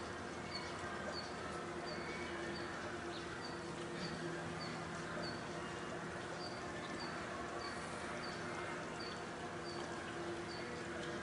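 A short high chirp repeating evenly about twice a second over a steady background hiss and a faint low hum.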